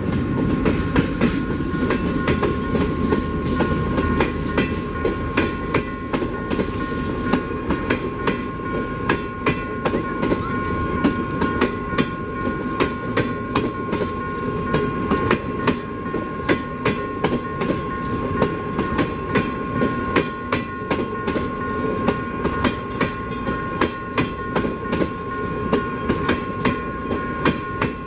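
Passing CNR passenger coaches rolling by, their wheels clicking over rail joints in quick repeated pairs over a steady rumble. A steady high tone sounds underneath.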